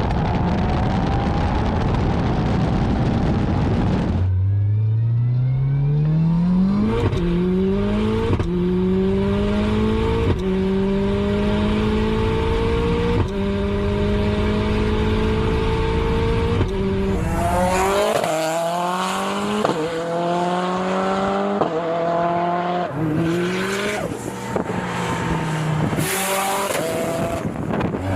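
Highly tuned Subaru WRX STI's turbocharged flat-four accelerating hard. Its revs climb and break at each quick upshift through several gears, then it goes through a series of short revs and lifts with a few sharp pops.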